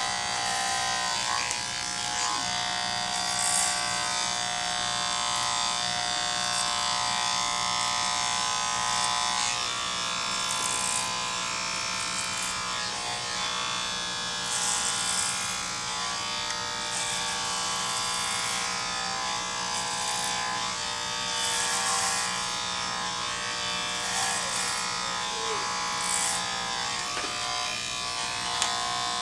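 Electric hair clippers running steadily, with a brief hissing surge every few seconds as the blades pass over the head.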